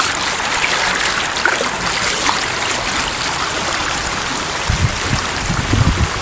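Stream water rushing steadily, heard as an even hiss. A low rumble joins near the end.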